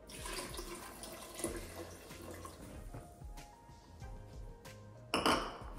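Water poured from a small bowl into a rice cooker's inner pot, splashing over the rice for about the first second and a half, with soft background music. A brief louder knock about five seconds in.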